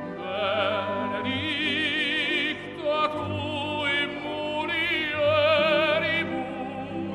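Operatic singing with a strong vibrato, a few long held notes over an orchestral accompaniment.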